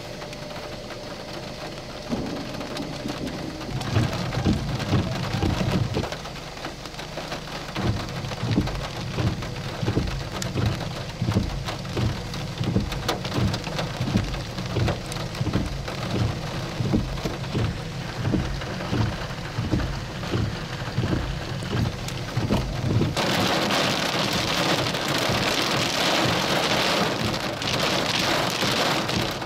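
Rain falling during a thunderstorm, a steady hiss with repeated low thumps about once or twice a second. About 23 seconds in, it changes to a louder, harsher hiss of heavier rain.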